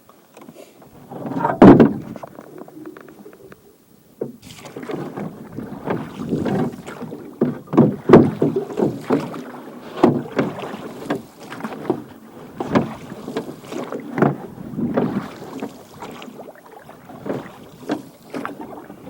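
A small boat worked with oars: irregular splashes and knocks of the oars in the water about once a second, with one louder knock near the start.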